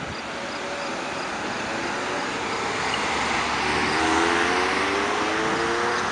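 Cars driving across a railway level crossing: tyre and engine noise building to a peak about four seconds in, with a car engine's rising whine as it accelerates away.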